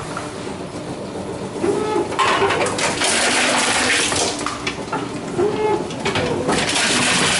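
Tomra T-22 reverse vending machine taking in a plastic bottle, with a loud rushing mechanical noise from about two seconds in until near the end, and a few short rising-and-falling whines.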